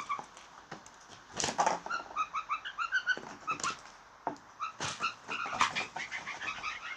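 Blue jays giving runs of short, clipped, croaking calls, several notes a second, with a few sharp taps mixed in.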